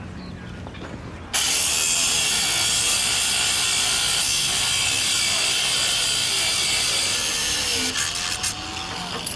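Cordless angle grinder's abrasive disc cutting through a steel chain: a loud, harsh, high grinding that starts suddenly about a second in, holds steady for about six seconds, then tails off near the end.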